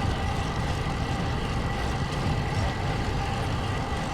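Strong wind buffeting the microphone of a camera on a moving bicycle: a steady, unbroken rumble.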